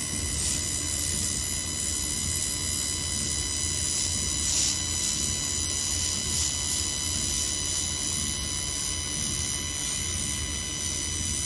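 1500 W handheld fiber laser welder running a continuous weld on 6 mm stainless steel: a steady high-pitched whine over a low hum and hiss, with a few brief crackles.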